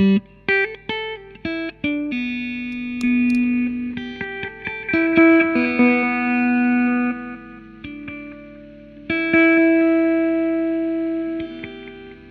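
Electric guitar played through a Sinvertek Fluid Time MK2 effects pedal. It opens with a few short picked notes, then moves to longer ringing notes and chords, and the last held note fades out near the end.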